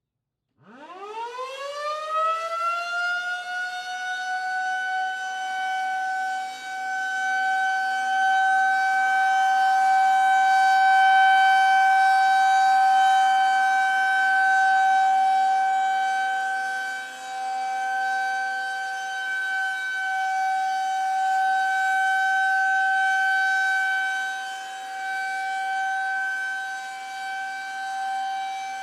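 Federal Signal 2001-130 outdoor warning siren starting up for a test activation: it winds up in pitch over the first few seconds after a near-silent start, then holds a steady wail, its loudness slowly swelling and fading.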